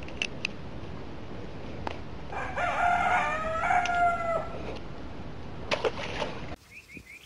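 A rooster crowing once, a call of about two seconds, with a few sharp clicks near the start and near the end.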